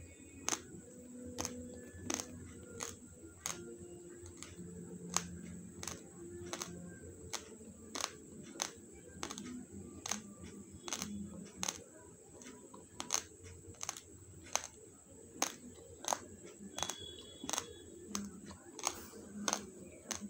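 Raw basmati rice grains crunching between teeth as someone chews, with sharp crisp cracks coming irregularly about one to two times a second.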